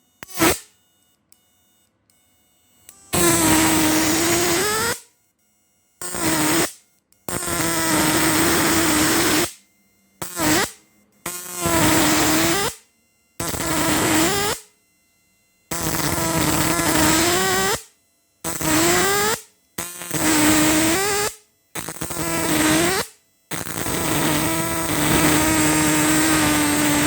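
A homemade 12 V electric fishing machine's inverter buzzing loudly as it is fired in short on-off bursts. There are about a dozen bursts of half a second to two seconds each, and each one dips in pitch as it starts and then holds a steady, harsh buzz.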